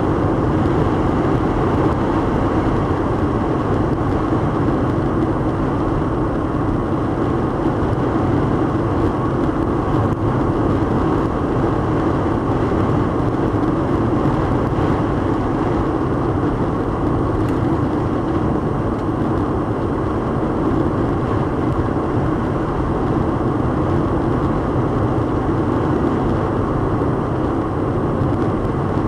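Steady road and wind noise inside a car driving on the highway in a strong wind storm.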